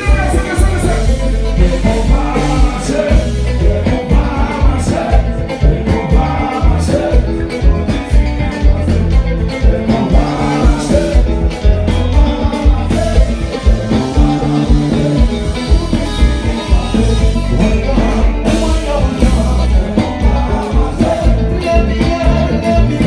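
Live compas band music with a steady, bass-heavy dance beat and a male singer on microphone.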